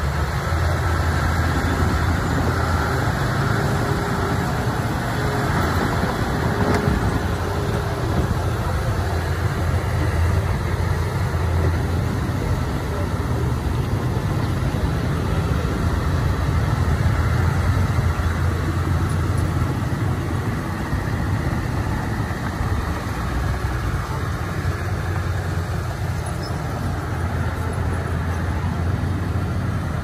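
Komatsu D31P crawler bulldozer's diesel engine running steadily with a low drone.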